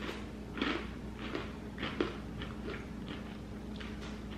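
Crunchy sourdough pretzel bites being chewed: a run of short, irregular crunches, the loudest about two seconds in.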